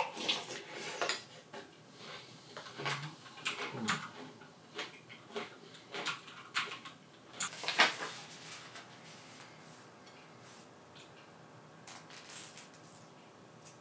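A spoon clinking and scraping against a bowl in quick, irregular strokes for about eight seconds, then only a few faint ticks.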